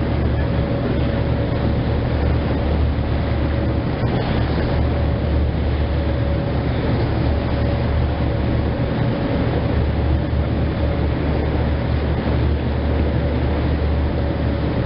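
Boat engine running at a steady cruising speed, a constant low drone with a faint high whine, over the rush and splash of the bow wave along the hull.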